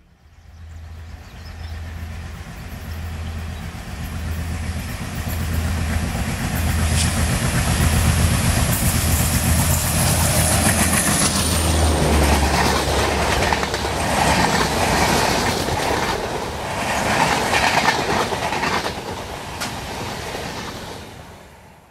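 A WDG-series diesel locomotive hauling a double-decker express approaches and passes, its engine throbbing low and evenly while a high whine drops in pitch as it goes by. The coaches follow with rhythmic clickety-clack of wheels over rail joints, and the sound fades near the end.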